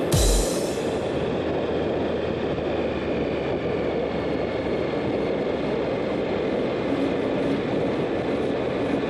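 Steady rushing wind and tyre noise from a bicycle ridden at speed on the road, picked up by the rider's camera, with a brief thump right at the start.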